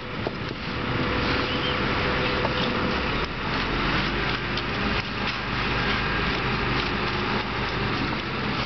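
Heavy diesel engine of concrete-pour equipment running steadily, a constant low hum under a broad mechanical rush.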